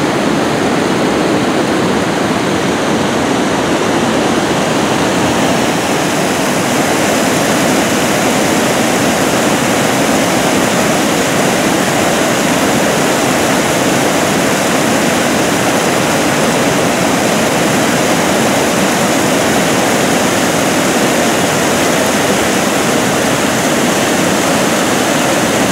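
Muddy floodwater spilling over an overflowing dam's spillway and rushing down a rocky channel in a loud, steady torrent.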